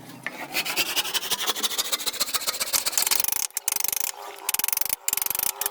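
A tool rasping across wood in a fast, continuous run of strokes, broken by short pauses in the second half.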